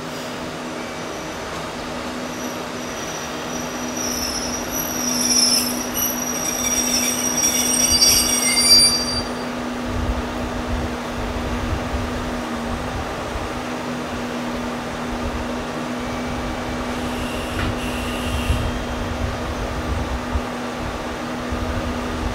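A diesel train in the station, its wheels squealing high-pitched for several seconds before the squeal stops about nine seconds in, over a steady low engine hum that carries on afterwards.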